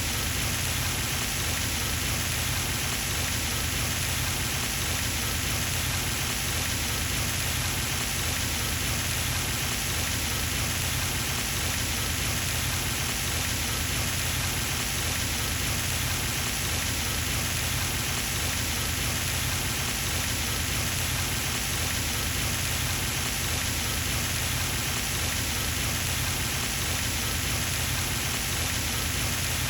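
Pond fountain spraying and its water falling back onto the pond surface, a steady pattering splash like rain.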